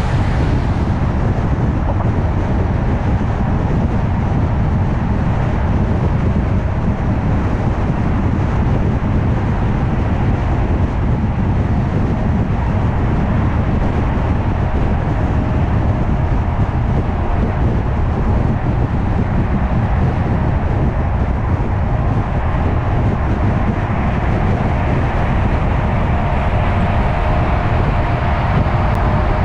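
A car cruising at highway speed: steady tyre and road rumble, heaviest in the low end. A faint steady whine joins over the last several seconds.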